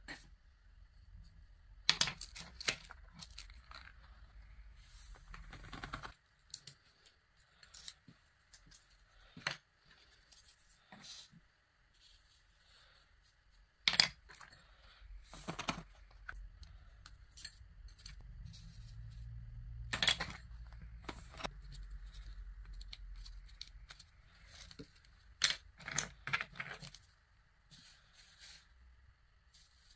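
Small wooden spoon clicking and tapping against plastic jars of coloured sand, with scattered sharp clicks. Between them come stretches of rubbing and scraping as hands press sand onto paper.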